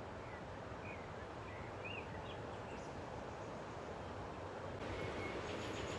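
Outdoor ambience: a steady rushing noise with a few short, high bird chirps in the first half. The noise grows a little louder near the end.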